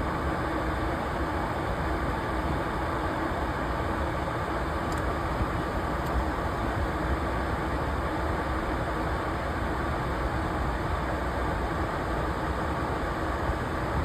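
Steady engine drone with rushing noise, even throughout with a faint constant hum, as heard inside an aircraft.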